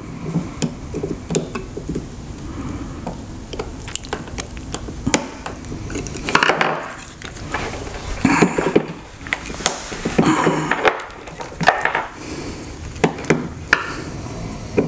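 Lithium-ion cells of a Ryobi 40V battery pack being twisted by hand in their plastic cell holder: scattered sharp clicks and short scraping, creaking rubs of plastic against the cells, recurring every second or two.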